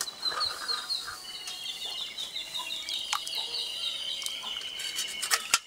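Water splashing and sloshing as hands rub shallots and garlic cloves in a clay pot of water, with birds chirping in rapid repeated notes throughout. A sharp click near the end.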